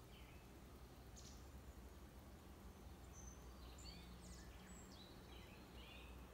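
Near silence outdoors with a low steady hum and faint birds chirping: a short call near the start, another about a second in, and a run of chirps from about three to six seconds in.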